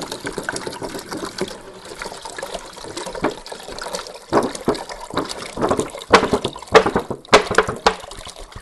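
Distilled water pouring from a gallon jug into a humidifier's water tank. The flow rushes steadily with irregular gulps, which grow louder and come more often in the second half as the tank fills.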